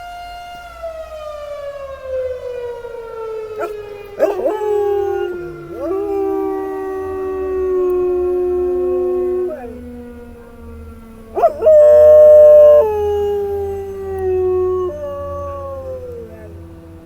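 A Federal Signal Model 5A rooftop siren's single tone winding down after its short blast, the pitch falling slowly and steadily throughout. A dog howls along with it again and again, and the loudest howl comes about twelve seconds in.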